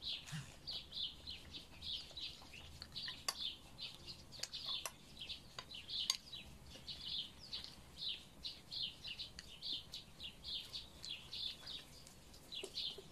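Small songbirds chirping steadily: a rapid, unbroken run of short high chirps, about three or four a second, with a few faint sharp clicks mixed in.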